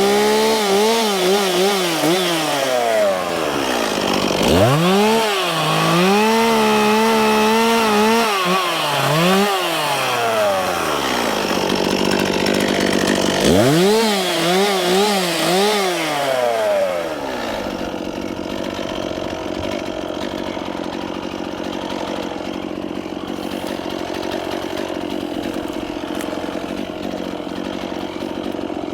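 Chainsaw cutting dead spruce in three long revving bursts, its pitch dipping and rising as the chain bogs in the wood. About seventeen seconds in it drops back to a steady idle.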